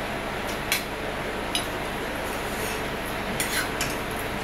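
Forks and spoons clinking and scraping on plates as people eat: several short sharp clinks, one ringing briefly about a second and a half in, over a steady background hiss.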